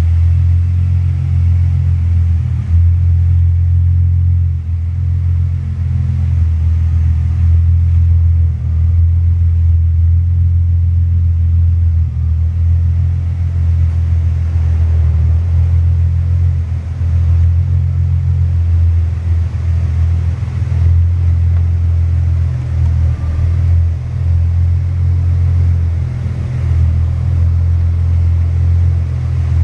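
A 1992 Volkswagen Corrado SLC's VR6 engine idles steadily through a TT stainless steel cat-back exhaust, giving a deep, even exhaust drone.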